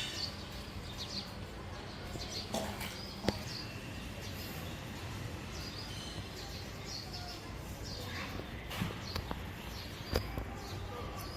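Steady outdoor background noise with scattered short, high bird chirps and a few sharp clicks.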